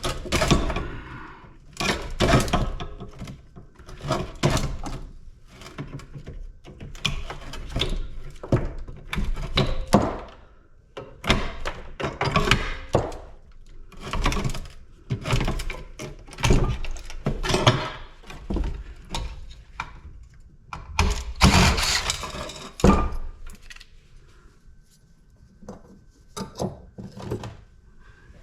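Parts and pieces from a dismantled PTAC air-conditioning unit being handled and set or dropped down while sorted for scrap: irregular thunks and clanks, about one or two a second, thinning out in the last few seconds.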